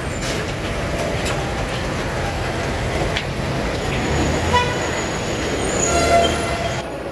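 Steady rumble of trains and road traffic around an elevated rail station, with brief pitched tones about four and a half and six seconds in.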